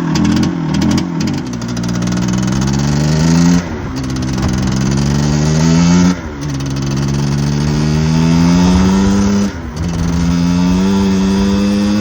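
1954 Triumph Speed Twin's 500 cc parallel-twin engine accelerating under load while ridden. The pitch climbs in each gear and drops suddenly at three upshifts, about four, six and nine and a half seconds in.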